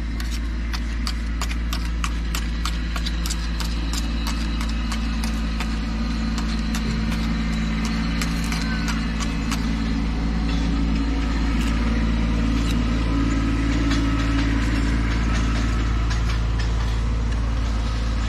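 Steel tuckpointing tool scraping and tapping against a mortar-laden trowel and concrete-block joints as mortar is packed in, many quick clicks, densest in the first half. Under it, a steady low motor hum like an idling engine.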